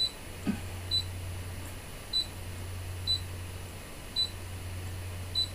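Key beeps from a Brother ScanNCut DX SDX1200 cutting machine's touchscreen as its arrow keys are tapped with a stylus to nudge the design's position: six short high beeps, roughly one a second, over a steady low hum.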